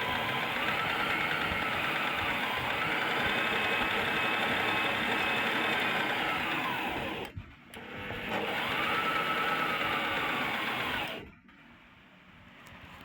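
Brother JV1400 portable sewing machine running at speed, stopping about seven seconds in, starting again a second later with its pitch rising, then stopping near the end.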